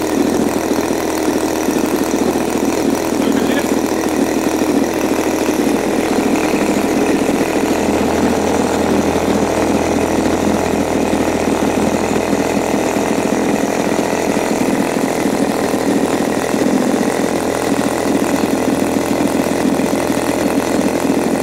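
Turnigy TP31-T 31cc twin-cylinder two-stroke gas engine, swinging a propeller on a test stand, running steadily on its first run with the choke off.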